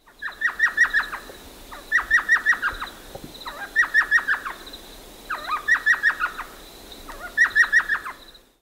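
Elf owl calling: five quick runs of five or six high notes each, repeated about every two seconds.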